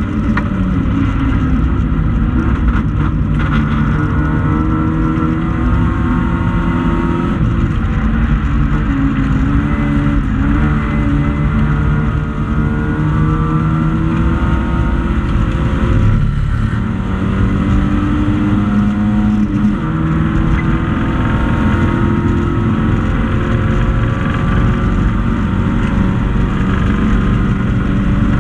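A racing hatchback's engine at racing speed, heard from inside the cabin. Its pitch climbs under acceleration and drops at each gear change and braking point, sharply once about halfway through. Loud road and wind noise runs underneath.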